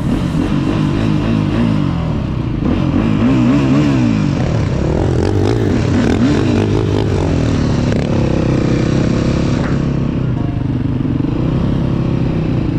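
Dirt bike engine running while riding, its pitch swinging quickly up and down in the first half as the throttle is worked, then running steadier.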